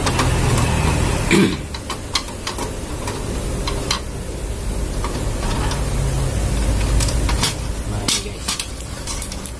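Screwdriver prying at a photocopier's plastic side cover, with scattered sharp clicks and knocks of plastic and metal. A louder knock comes about a second and a half in, and a run of clicks near the end as the trim panel comes free. A steady low hum runs underneath.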